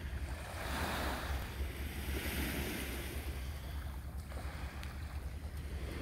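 Small waves washing against shoreline rocks, swelling twice in the first half, over a steady low rumble of wind on the microphone.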